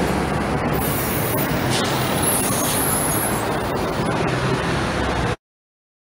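Street traffic noise picked up by a phone microphone, steady, with a brief high hiss about halfway through. It cuts off abruptly a little over five seconds in, leaving dead silence.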